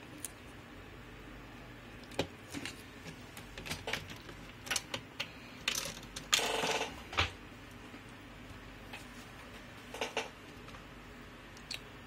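Scattered light clicks and taps from hands handling a laptop's display cable connector and the parts around it, with a brief scraping rustle a little past the middle.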